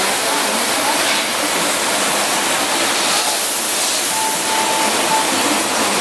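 Water spraying inside a Dolphin commercial dishwasher during its wash cycle, a steady rushing hiss against the door window.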